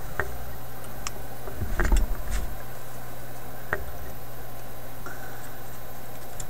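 Small clicks and taps of pliers and wire leads against the metal chassis of a tube radio, with a brief burst of louder knocks and bumps about two seconds in, over a steady low hum.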